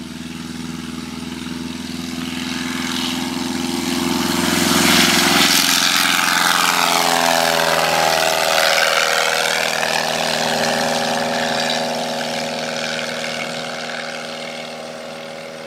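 Savage Outback light-sport aircraft's 180 hp Titan four-cylinder, fuel-injected engine and propeller at takeoff power, growing louder as the plane climbs past overhead. The pitch drops as it passes, about six seconds in, and the sound then fades as it climbs away.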